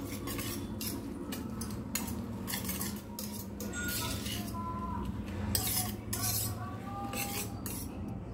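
Metal spoon stirring a wet vermicelli, egg and vegetable mix in a stainless steel bowl, scraping and clinking against the bowl again and again. The clinks stop just before the end.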